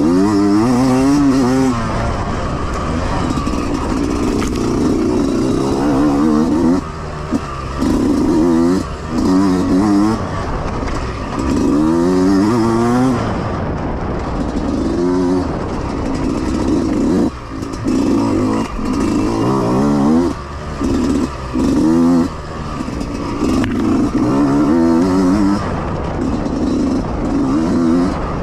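Yamaha YZ125X 125 cc two-stroke dirt bike engine under hard riding, revs climbing and falling again and again as the throttle is worked, with short drops each time it is shut off.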